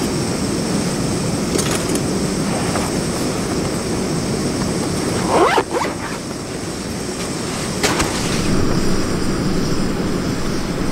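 Propane camp burner running with a steady roar under a stainless steel coffee brewer heating water, with a few brief light knocks, one with a short rising squeak about halfway through.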